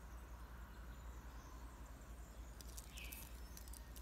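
Faint, light metallic clicks and clinks of stainless steel Rolex watch bracelets being handled and set down, starting a little past halfway, over a faint steady low hum.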